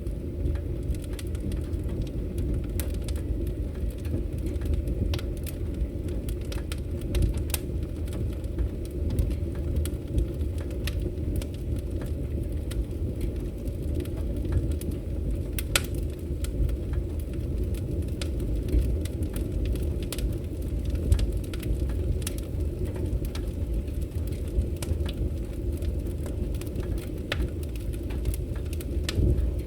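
Wood fire burning in a fireplace: a steady low roar of flames with frequent sharp crackles and pops at irregular moments.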